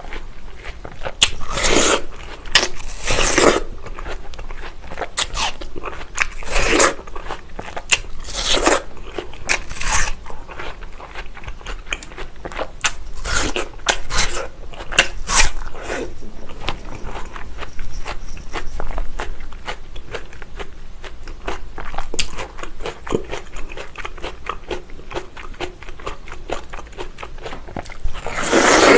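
Close-miked bites and chewing of crisp watermelon: a dense run of wet crunches and small clicks, heaviest in the first third, with one big crunch near the end as a fresh slice is bitten into.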